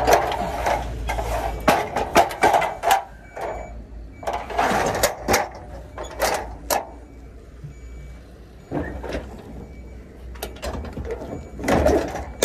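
Metal clicks and clanks in several bursts, with short scraping rustles, as gloved hands work the latch on a curtainsider trailer's side post and handle a ratchet strap and the side-board catches.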